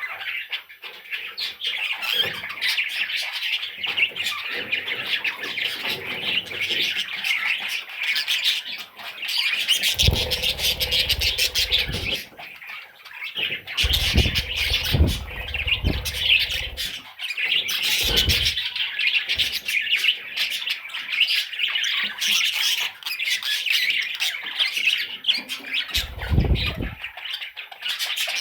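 Budgerigar chicks squawking and chirping in a continuous raspy chatter, with several dull low bumps a third of the way in, around the middle and near the end.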